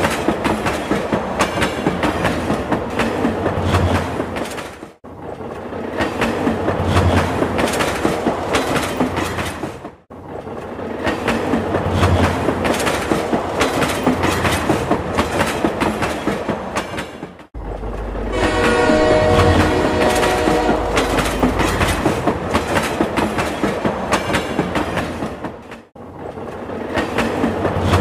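Train running on track with a rapid, steady clickety-clack of wheels over rail joints. The sound cuts out briefly four times, and a pitched horn tone sounds for a few seconds just past the middle.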